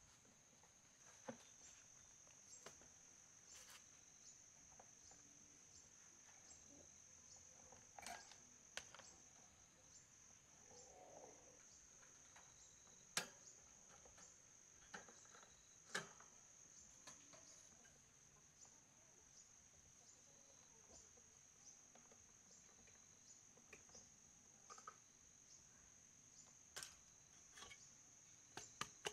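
Faint, steady high-pitched drone of insects, with scattered light clicks and knocks from handling a pedestal fan's wire grille and plastic blade as they are taken off.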